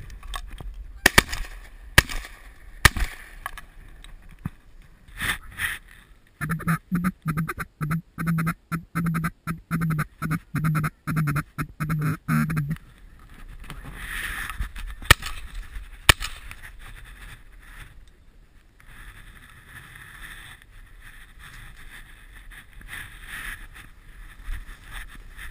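Ducks quacking and geese honking, with a fast run of chattering quacks lasting about six seconds in the middle. A few sharp clicks come in the first three seconds.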